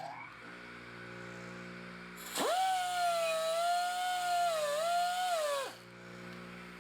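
Air-powered buffing tool with a Scotch-Brite pad running at reduced air pressure for about three seconds: a high whine with air hiss that starts sharply, sags briefly near the end and cuts off. A steady lower machine hum runs underneath.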